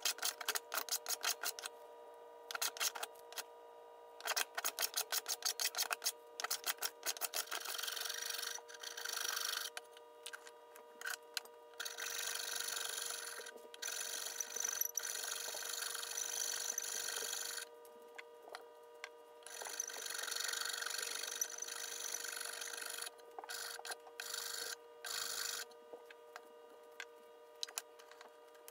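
Quick, short strokes of a small hand plane shaving a wooden hammer-handle blank clamped in a vise. Further in come longer strokes of a file rasping the rounded wooden handle, each about a second long with short pauses between them.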